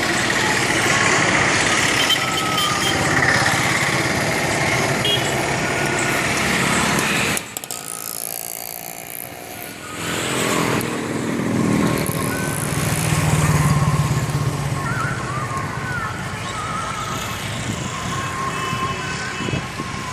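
Outdoor street noise: motor vehicle traffic with short tonal sounds like horns. It drops away abruptly about seven and a half seconds in and comes back a couple of seconds later.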